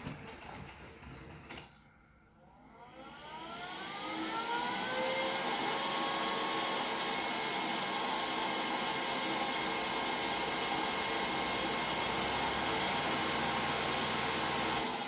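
Neato D85 robot vacuum's motors spinning up with a rising whine after a click, then running with a steady whir. This is the robot trying to start a cleaning run that never gets going and ends in error 3000.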